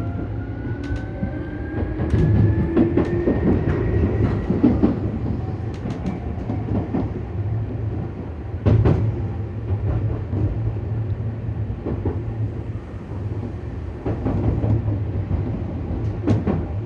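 Tokyu 8500 series electric train running, its traction motors giving a whine that rises in pitch over the first few seconds as the train picks up speed, over a steady low rumble. The wheels clack over rail joints, with a sharp knock about nine seconds in and another near the end.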